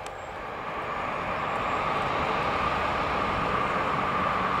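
Airbus A350-900's Rolls-Royce Trent XWB turbofans running at taxi power: a steady high whine over a rumble, growing louder over the first two seconds as the aircraft taxis closer, then holding steady.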